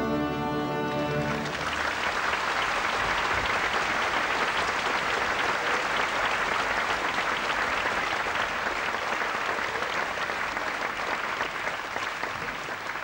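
Ballet orchestra finishing a passage, giving way about a second and a half in to a theatre audience applauding steadily.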